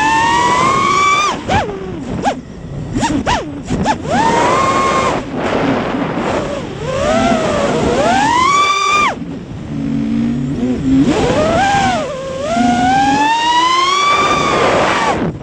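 FPV mini quad's electric motors whining, their pitch sweeping up and down with the throttle and dropping away sharply several times, over rushing wind noise on the quad's onboard camera.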